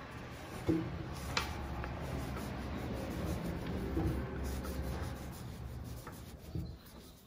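Soft rubbing and rustling of yarn and a crochet hook being worked by hand, stitch by stitch, with a couple of light clicks in the first second and a half.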